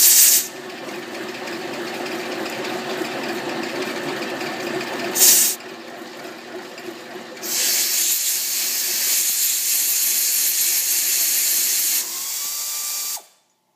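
Milling machine spindle turning a boring bar, enlarging a pin hole in a steel plow linkage yoke, with short hissing blasts from a compressed-air blow gun at the start and about five seconds in. A louder, higher hiss joins the running machine from about seven and a half seconds, and everything stops abruptly shortly before the end.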